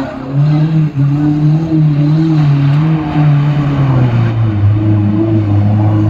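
Modified off-road 4x4's engine running hard at high, steady revs as the vehicle pushes through deep muddy water. The pitch drops to a lower note about four seconds in.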